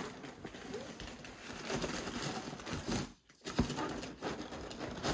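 Rustling and scraping of packaging inside a cardboard box as gloved hands work the contents loose. The rustling stops briefly about three seconds in.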